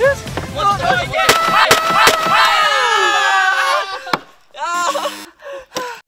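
Excited voices shouting over background music, with a few sharp cracks a little over a second in. Near the end, short choppy tones, with a dip in level.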